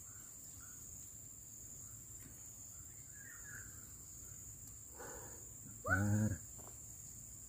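Steady high-pitched drone of insects such as crickets, with one short voiced call about six seconds in.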